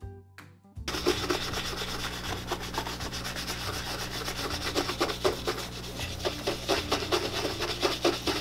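A shoe brush buffing the leather upper of a black cap toe oxford in quick back-and-forth strokes, a fast scratchy rubbing that goes on steadily, as polish is worked into the leather.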